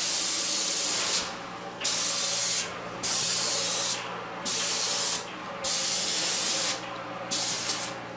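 Paint spray gun hissing as it sprays primer in repeated trigger pulls: about six bursts of around a second each with short breaks between, over a steady low hum.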